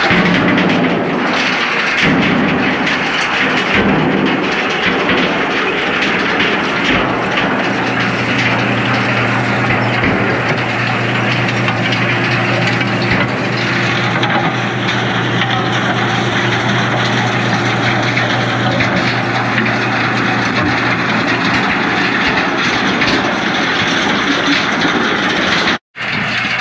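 Tractor-drawn stone-picking machinery working a field: a steady tractor engine note under continuous rattling and scraping of stones and soil through the machine. The sound cuts out for a moment near the end.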